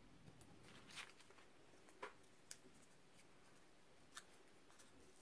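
Near silence with a handful of faint, sharp clicks and rustles, spaced about a second apart, the loudest about two seconds in: fingers handling and peeling the backing from small foam adhesive dimensionals.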